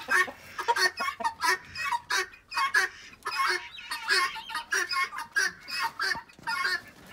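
Chickens clucking behind the coop wire: a steady run of short calls, about two or three a second.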